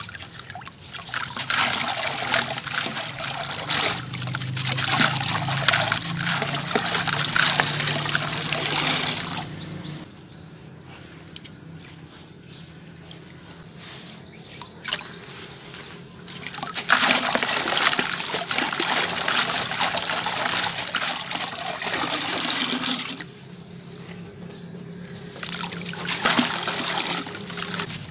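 Soaked sand-cement discs crumbled by hand over a bucket of water, wet grit trickling and pattering into the water. It comes in three spells, with a long quieter pause about ten seconds in and a shorter one a little after twenty-three seconds.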